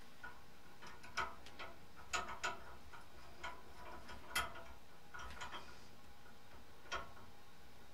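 Irregular light clicks and taps of small mounting parts being handled by hand as CPU standoffs and a bracket are fitted onto a passive PC heatsink, about a dozen clicks spread unevenly.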